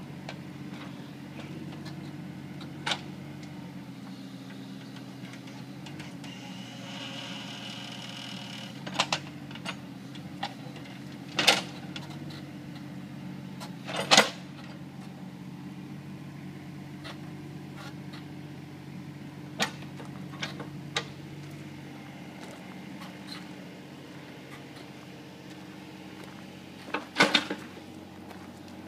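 Mini excavator engine running steadily, with a brief whine about a quarter of the way in and a series of sharp knocks and clanks scattered through, the loudest about halfway in and near the end.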